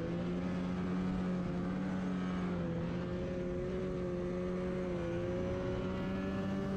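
Snowmobile engine running at a steady idle, its hum holding an even pitch with only slight drifts.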